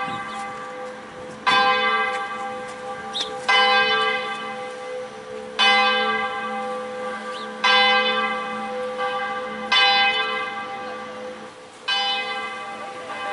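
A church bell tolling slowly, six strokes about two seconds apart, each ringing on and fading until the next.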